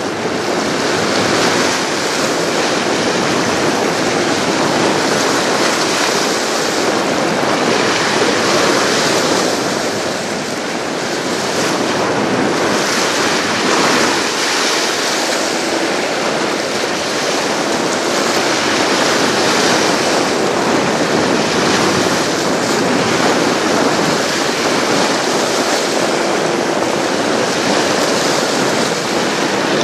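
Waves washing at the shoreline with wind buffeting the microphone: a steady rushing noise that swells and eases every few seconds.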